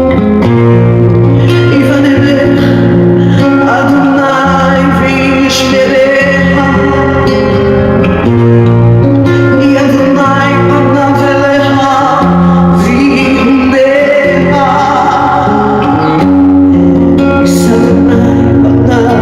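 Music: a song with singing over guitar accompaniment.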